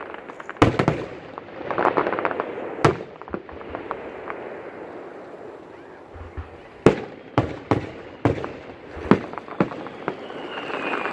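Aerial fireworks bursting: a sharp bang, a stretch of crackling about two seconds in, then a quick run of several bangs in the second half. A faint falling whistle comes near the end.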